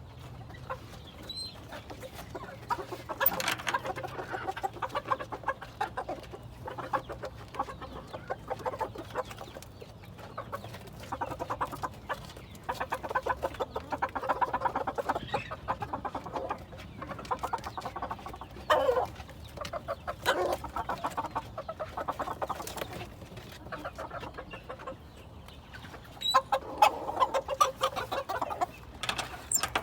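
Ko Shamo bantam chickens clucking, in runs of rapid clucks that come and go every few seconds.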